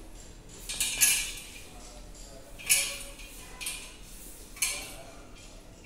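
Metal chain leash clinking and rattling against a stainless-steel exam table as a puppy shifts about, in a handful of short bursts roughly a second apart.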